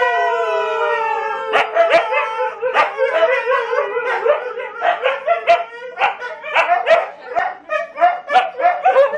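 Several Siberian huskies howling together. One long howl slowly falls in pitch at the start, then gives way to a run of short, broken howls and yips from several dogs at once.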